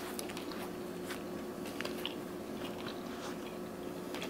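A person chewing and biting into deep-fried turkey, with scattered small crunching clicks.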